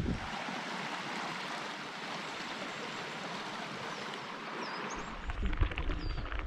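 Stream water rushing steadily over rocks, an even hiss. A bird chirps briefly a few times in the second half, and low wind rumble on the microphone comes back about five seconds in.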